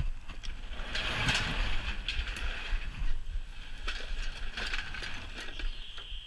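Old wooden garage door being hauled up open by hand, scraping and rattling for a couple of seconds with scattered clicks, then a high steady squeal near the end.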